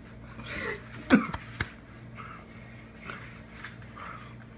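A person's breathing and short muffled vocal noises, with one sharper, louder one about a second in.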